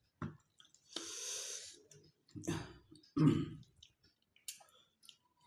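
Eating sounds from people eating with their hands at a table: a breathy rush of air about a second in, then short mouth and chewing noises, with small clicks of fingers and food on steel plates.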